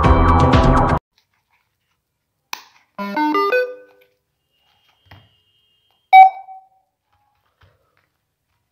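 Music that stops about a second in, then a homemade cardboard-box speaker's electronics chiming: a quick rising run of electronic notes, then a single loud beep a few seconds later, the kind of start-up and connect tones a small Bluetooth speaker board gives.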